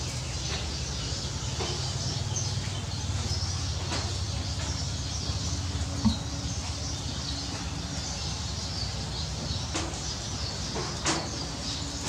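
Steady rain falling on leaves and gravel, with water streaming down from a roof edge and splashing onto the plants below. A few sharp taps stand out, the loudest about six seconds in.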